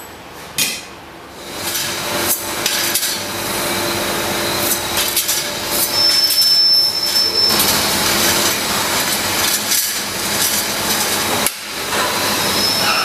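Steel circular saw blades clinking and clanking against each other and a steel wire basket as they are handled and stacked, many short metallic knocks over steady factory noise. One sharp knock comes about half a second in, and a brief high whine sounds in the middle.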